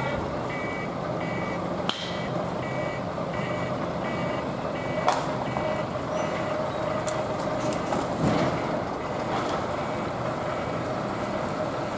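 Truck reversing alarm beeping a little under twice a second and stopping about four seconds in, over the truck's diesel engine running steadily. A few sharp knocks of metal gear sound along the way.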